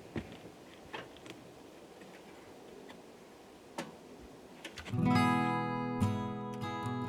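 A few faint clicks over low background noise, then acoustic guitar music comes in strummed about five seconds in, clearly louder than what came before.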